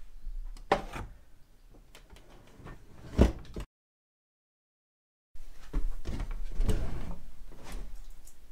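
Door of a homemade powder-coating oven being shut with two knocks, then, after a short gap of total silence, being pulled open again with scraping and rattling.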